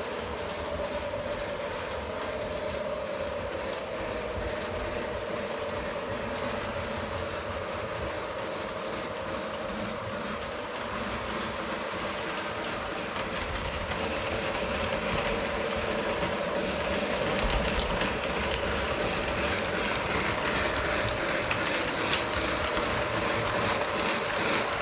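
Lionel O-gauge model train running on its track: a steady electric-motor hum with wheels rattling and clicking over the rails, growing louder about halfway through.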